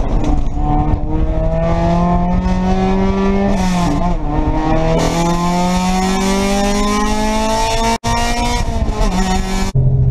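Race car engine heard from inside the stripped, caged cockpit, pulling hard under acceleration: its pitch climbs steadily, drops at a gearchange about four seconds in, then climbs again. A brief dropout comes about eight seconds in, and near the end it switches abruptly to a lower, steady engine note.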